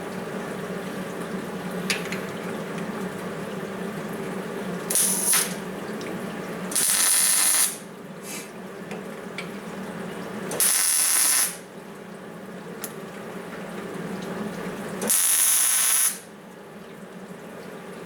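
Stud-welder dent puller firing in four separate bursts, each a harsh hiss lasting about half a second to a second, welding pull studs onto the pickup's bedside panel. A steady hum from the welder runs between the bursts.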